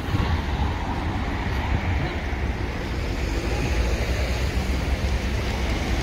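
Street traffic: cars driving past, with a steady low rumble of wind on the microphone.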